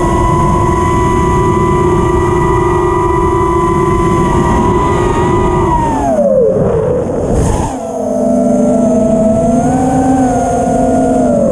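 FPV freestyle quadcopter's brushless motors and propellers whining at a high, steady pitch, then dropping in pitch about six seconds in as the throttle comes off, with a brief rush of noise. The whine then settles lower and rises and falls slightly.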